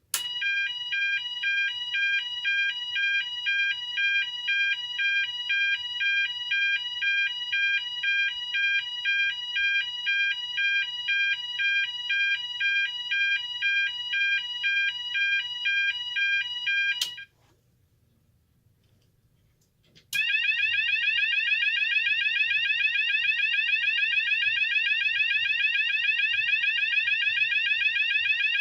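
Cooper MIN-T fire alarm sounder, muffled with toilet paper, stepping through its selectable tones. First it sounds a fast alternating two-pitch tone for about seventeen seconds, which cuts off. After about three seconds of quiet it starts a second tone, a rapidly repeating rising sweep.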